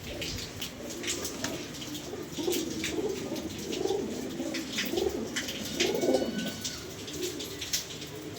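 Domestic pigeons cooing over and over in low warbling phrases, with scattered sharp clicks and taps among them.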